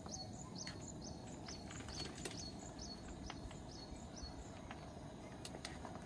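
A bird calling over and over, a short high note falling in pitch about twice a second, which stops about four seconds in, over a steady low outdoor background. A few light, sharp clicks of utensils against a metal cooking pot sound now and then.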